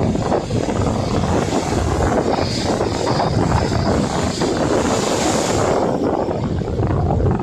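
Wind buffeting the microphone at the sea, a steady low rumble, with the hiss of waves washing up more strongly in the middle few seconds.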